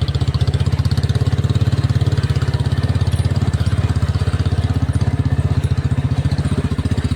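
Royal Enfield Bullet's single-cylinder engine running steadily, with a quick, even thumping beat that holds the same pace throughout.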